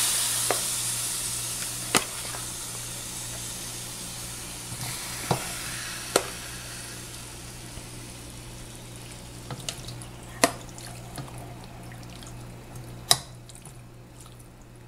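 Marinated chicken and its soy-vinegar marinade sizzling in a hot wok, the sizzle slowly dying down. About five sharp clinks of a metal spoon against the container and wok are heard over it.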